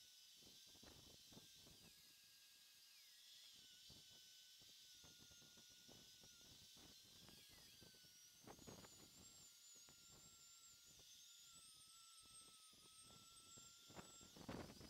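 Faint high-pitched whine of a Dremel rotary tool running, its pitch drifting slightly as it works, with scattered clicks.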